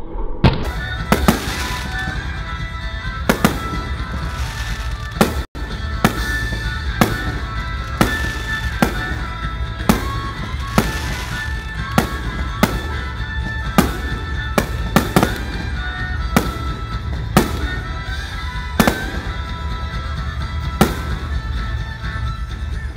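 Aerial fireworks going off in a steady series of sharp bangs, about one a second, with music playing underneath.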